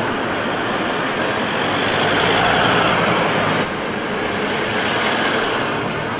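Dubbed-in sound effect of a tram passing close by: a steady noisy rumble that swells about two to three seconds in, then drops off abruptly a moment later.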